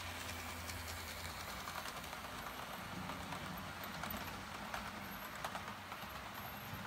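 Model train running past on its track: a low motor hum as the locomotive goes by, then quick clicking and clattering of the coaches' wheels on the rails, a few sharper clicks near the end as the last coach passes.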